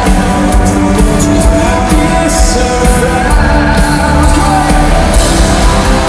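Rock band playing live at full volume: electric guitar, bass and drums with a sung vocal, heard loud from within the crowd.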